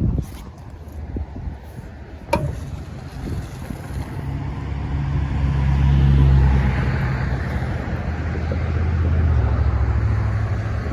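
A motor vehicle passing, its low engine hum and tyre noise swelling to a peak about halfway through, then easing and rising again near the end, over wind on the microphone. A sharp click about two seconds in.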